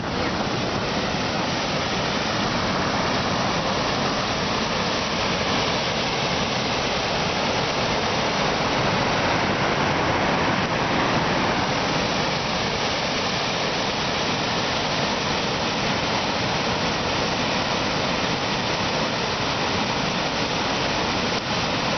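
Kivach waterfall's water pouring and rushing over the rocks, a steady, loud, even roar of falling water.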